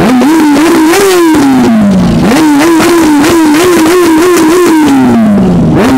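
Kawasaki ZX-10R inline-four sport bike engine revved hard at a standstill: repeated quick throttle blips, the revs falling back between them. About a second in, and again near the end, the revs drop away slowly for over a second. Very loud.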